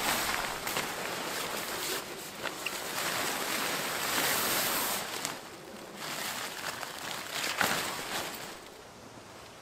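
Heavy synthetic tent fabric rustling and crinkling in swells as a bundled pop-up tent is lifted and pulled upright over a plastic ground sheet, dying down near the end.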